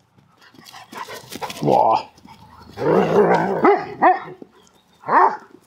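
Dogs barking and growling in play: one long rough growling bark, then a few short barks.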